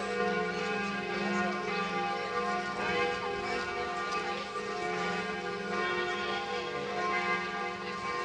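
Bells of Notre-Dame de Paris ringing the noon peal, several bells sounding together with their tones overlapping and swelling without a break.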